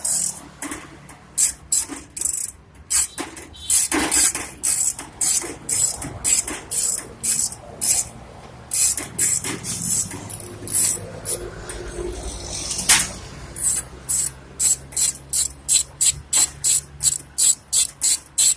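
Rhythmic scraping strokes of a hand tool working metal, short rasping strokes, irregular at first and settling to about two a second near the end.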